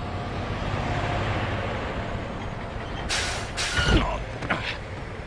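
Training truck driving with its engine running, then braked hard about three seconds in: the air brakes let out two sharp hisses and the truck stops with a thump. The air brake has been stamped on too hard.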